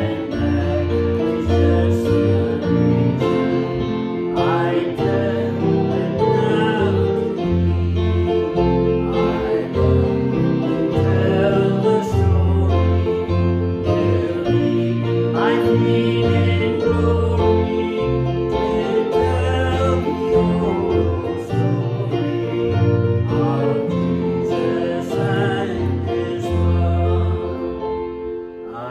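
A hymn played on guitar, with a bass guitar carrying held low notes that change every second or so beneath the melody.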